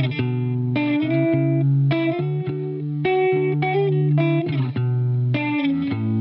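Background music led by guitar, its chords changing about once a second.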